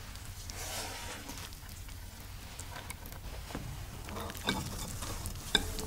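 Wet shredded potato being handled and dropped into a stainless-steel mesh sieve over a glass bowl: soft rustling, then a few sharp taps and drips in the second half, with two louder ones about four and a half and five and a half seconds in.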